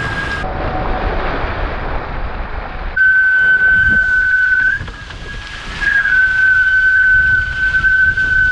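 Water and wind rushing past a Nacra 17 foiling catamaran. About three seconds in, a steady high-pitched whistle sets in: the hydrofoils singing at speed. It fades briefly near the middle and then comes back.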